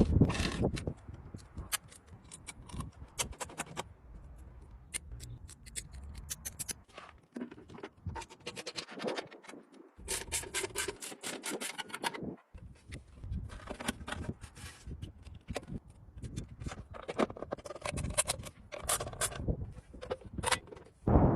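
Hand work on bicycle parts: irregular scraping and rubbing, broken by many small clicks and knocks, with a loud knock right at the start.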